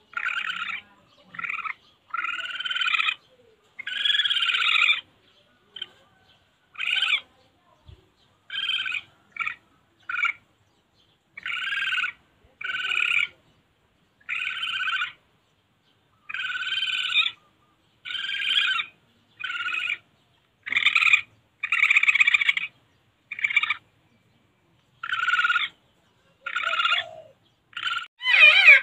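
Recorded calls of a civet, played as a lure: short calls, each under a second, repeating about once a second with uneven gaps.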